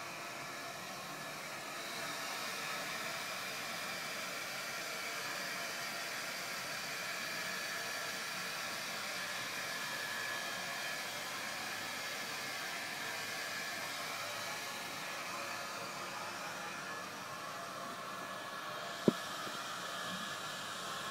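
Steady background hiss with faint, steady high-pitched tones running through it. A single sharp click sounds about nineteen seconds in.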